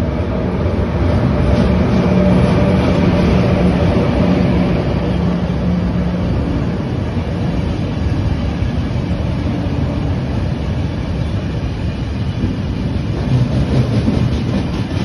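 Intercity passenger train hauled by CP class 5600 electric locomotive 5609 rolling past along the platform. A steady hum comes from the locomotive in the first half, then the coaches rumble by, with wheel clicks near the end.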